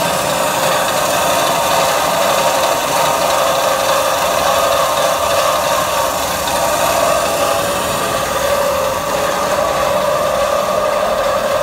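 1997 Ficep 1250TB CNC horizontal mitre-cutting bandsaw running, its blade travelling through the guide arms: a loud, steady machine noise with a steady whine.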